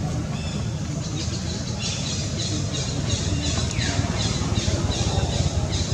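Short, high chirping calls repeating about three times a second, starting about two seconds in, with one falling call near the middle, over a steady low rumble.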